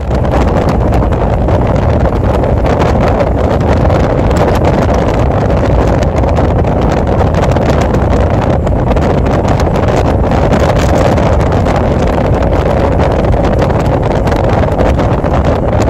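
Touring motorcycle cruising at steady road speed: loud, constant wind buffeting the microphone over the engine and tyre noise.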